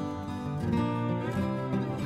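Acoustic guitar music in a country style, strummed chords with a sliding note about three quarters of the way through.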